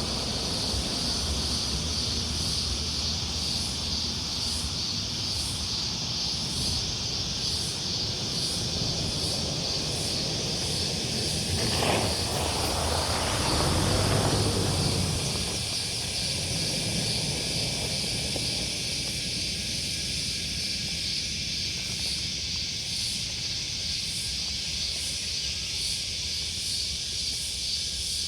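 Steady chorus of insects, with a high, fast pulsing trill and a higher chirp repeating about once a second. A vehicle passes on the road about twelve to fifteen seconds in, swelling briefly over the insects.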